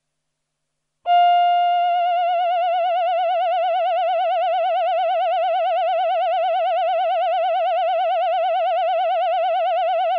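Roland VP-330 vocoder-synth playing its 'Human Voice Male' choir sound: one long held note with an even vibrato, starting sharply about a second in.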